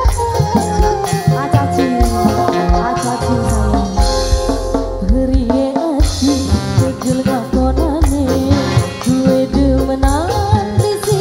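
Live street dangdut music: a woman sings into a microphone over a steady drum beat and rattling percussion.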